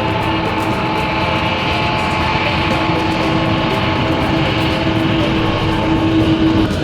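Jet airliner engines running steadily: a loud, even rush of noise with a steady whine held underneath.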